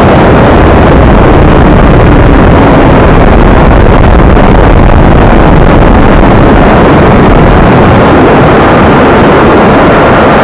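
Wind rush and engine noise from a camera mounted on a Honda CBR600RR riding at speed, overloading the audio so that it is saturated throughout. A faint engine note drops in pitch in the first few seconds.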